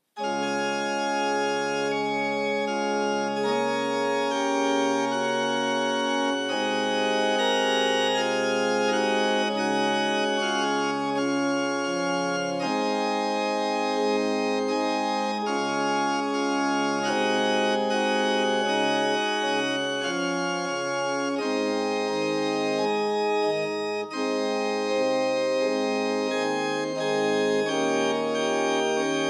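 Organ music: slow, sustained chords changing every second or two over a moving bass line.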